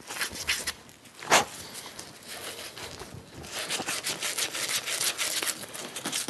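Emery cloth scraped back and forth over a copper pipe joint in fast short strokes, several a second, starting about halfway through: the copper being cleaned bright before tin soldering. A single sharp knock about a second in.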